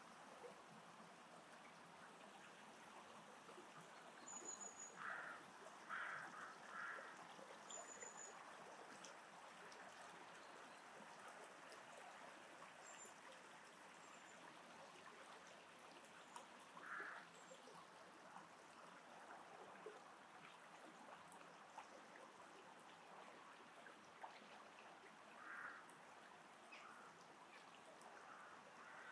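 Faint steady trickle of running water, with a few short bird calls coming in small groups, around five to seven seconds in, near the middle and again near the end, plus two brief high chirps in the first third.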